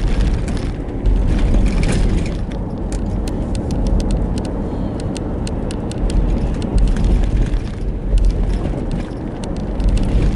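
Car interior while driving: steady low road and engine rumble, with frequent small rattling clicks.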